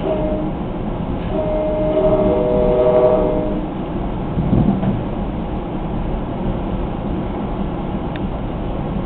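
Train horn sounding once for about two seconds, a little over a second in, heard from inside a moving Comet V passenger coach over the steady rumble of the wheels on the rails.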